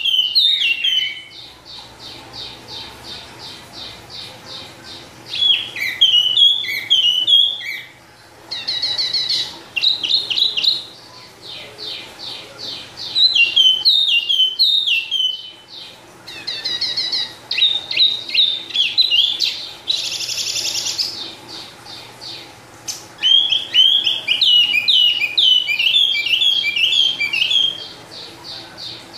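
A caged wambi songbird singing: phrase after phrase of quick, high notes that each drop sharply in pitch, with short pauses between the phrases. About two-thirds of the way through there is one brief, harsh, hissy burst.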